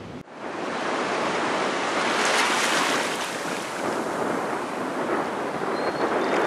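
Sea surf washing in over a sandy beach: a continuous rush of foamy water that swells about two seconds in and eases again.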